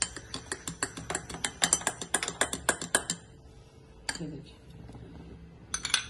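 A spoon stirring coffee in a glass mug, clinking rapidly against the glass for about three seconds, then stopping; a few more clinks come near the end.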